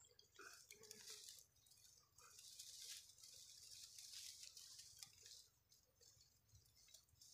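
Near silence: a faint hiss that swells twice and fades, with a few tiny soft ticks and rustles while the rifle is held steady. No shot is heard.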